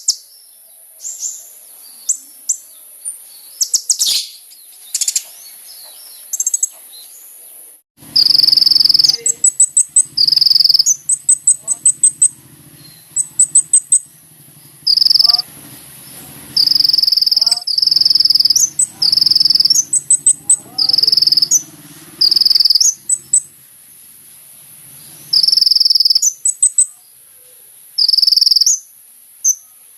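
Sunbird (kolibri ninja) singing: a few thin, scattered chirps at first, then from about eight seconds in a long run of loud, very high-pitched notes and quick trills repeated in close bursts. A steady high insect-like hiss sounds underneath.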